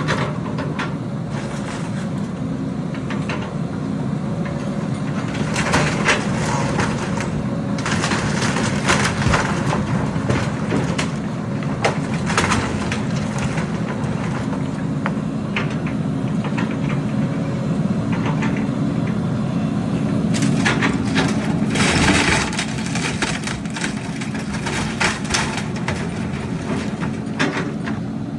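Diesel engine of heavy construction machinery running steadily, with scattered sharp cracks and knocks of material being broken or moved, loudest a little past the three-quarter mark.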